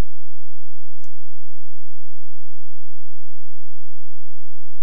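Steady electrical hum made of several fixed tones, with a single click about a second in.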